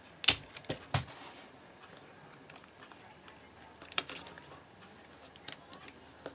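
Sticky tape and small plastic craft pieces being handled by hand: scattered short clicks and snaps, with a brief rasp about four seconds in.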